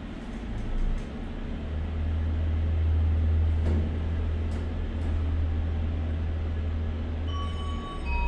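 Elevator car travelling, with a steady low hum from the drive from about a second in until it stops near the end. As it arrives, a two-note electronic chime sounds, the second note lower.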